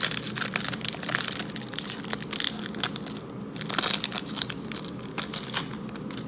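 Foil trading-card pack wrapper crinkling and crackling as it is handled and torn, thinning out near the end.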